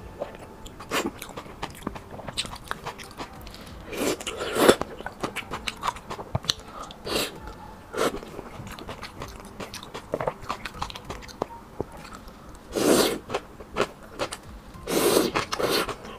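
Close-miked eating of pig brain and noodles in chili oil: soft wet chewing with many small mouth clicks, broken by a few short, louder slurps of noodles.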